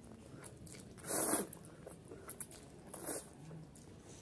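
A person slurping instant noodles off a fork: a loud hissing slurp about a second in and a shorter one near three seconds, with faint wet chewing clicks between.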